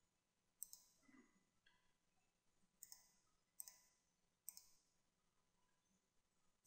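Faint computer mouse button clicks, about five spread through a near-silent stretch, each a quick double click of press and release.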